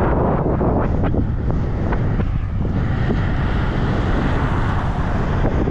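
Heavy wind buffeting the microphone of a moving bicycle rider, steady throughout, over the running noise of a double-stack container freight train rolling past alongside.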